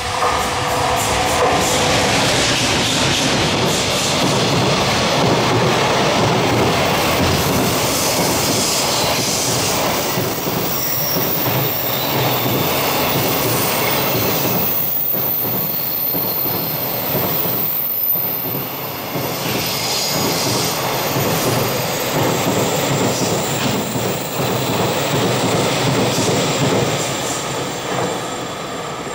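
JR Freight container train with an EF200 electric locomotive passing close by: a loud, steady rumble and clatter of the container wagons' wheels on the rails, with a few brief high wheel squeals as the train rounds the curve.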